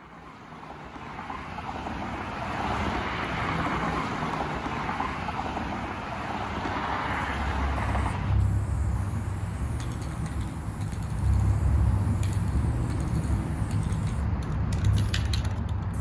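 A hiss swells up over the first half, then about eight seconds in gives way to the steady low rumble of cars passing on a multi-lane highway.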